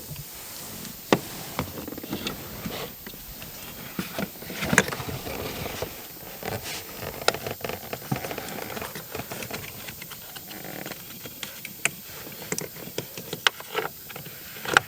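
Scattered clicks, taps and small knocks of hand tools and parts being handled, irregular throughout, with sharper knocks about a second in, near five seconds and near the end.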